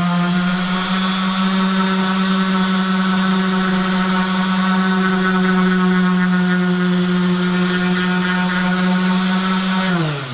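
Makita random orbital sander running steadily on plywood, a constant hum with a ring of higher overtones. Near the end it is switched off and its pitch falls away as it spins down.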